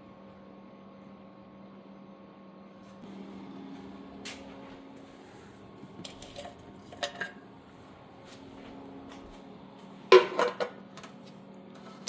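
Scattered metallic clinks and knocks from handling a fuel can and the fuel-tank filler and cap while refuelling a small ATV, with the loudest, a short clatter, about ten seconds in, over a steady low hum.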